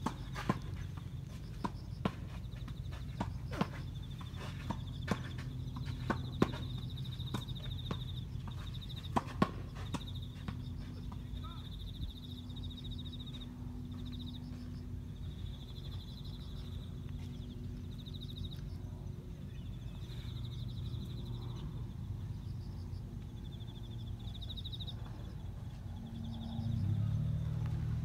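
Outdoor ambience: insects trilling high-pitched in repeated bursts over a steady low rumble, with several sharp clicks in the first ten seconds and the rumble growing louder near the end.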